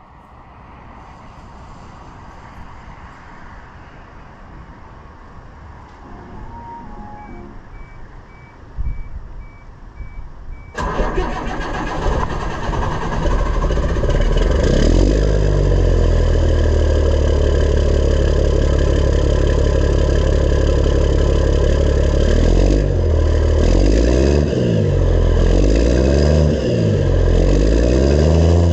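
Diesel truck engine being started: a short run of beeps, then the engine fires abruptly about eleven seconds in and settles into a steady idle. Near the end it is revved up and down several times.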